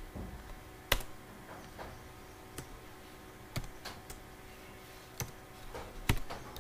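Computer keyboard keys pressed one at a time: about eight separate, irregularly spaced key clicks, the loudest about a second in, as a file is edited in a text editor.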